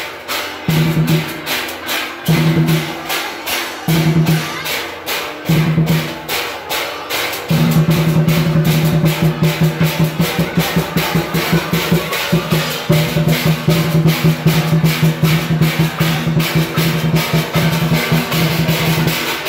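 Percussion-led music: a fast, even drum beat under a low held tone that comes in short pulses at first and then sounds steadily from about eight seconds in.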